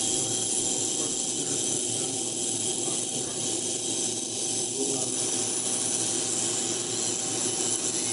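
Ultrasonic cleaner running: a steady hiss with a faint hum of several steady tones underneath, as the ultrasound works through an isopropanol bath to clean a crashed disk-drive head. The sound cuts off suddenly just after the end.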